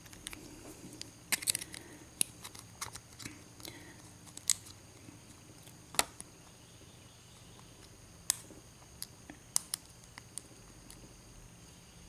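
Small, irregular metallic clicks and ticks from a lock pick and tension wrench working the pin stack of a four-pin Master Lock padlock, with the sharpest click about halfway through.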